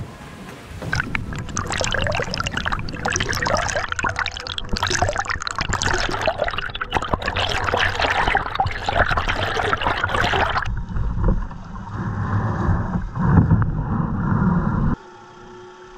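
Water splashing and churning against a plastic sea kayak's hull under paddle strokes, close up at the waterline. About two-thirds of the way through it cuts off suddenly to a duller rumbling.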